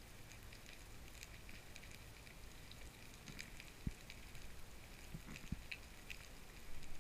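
Underwater sound of brown meagre drumming: short low knocks, one about four seconds in and a quick run of three a little after five seconds, over a steady fine crackling.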